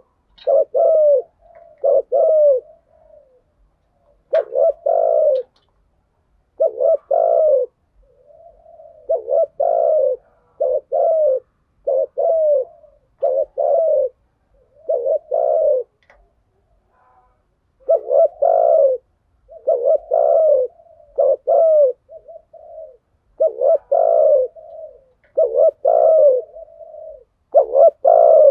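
Spotted doves cooing, a run of short low coo phrases of two or three notes each, with brief gaps and a few longer pauses.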